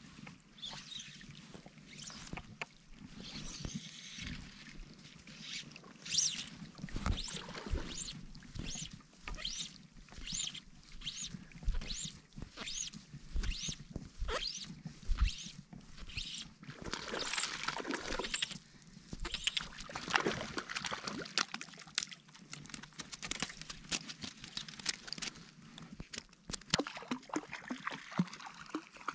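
Water splashing and sloshing at the lake's edge as a hooked brook trout is brought in through the shallows, with a run of short rasping strokes about two a second in the middle from fly line being hand-stripped in.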